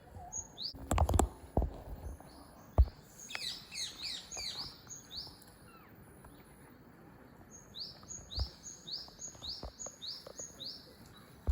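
A small songbird singing two bouts of quick, evenly repeated high rising notes, about two or three a second. There are a couple of loud knocks early on.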